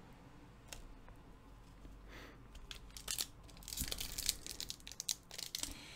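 Crinkling and crackling of a foil booster-pack wrapper being handled. It is quiet at first apart from one click, then comes in quick crackly runs from about halfway through.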